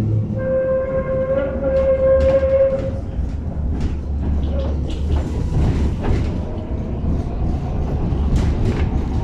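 Tatra T6B5 tram running along the track: a steady low rumble with scattered rail clacks. Near the start there is a steady high-pitched squeal lasting about two and a half seconds.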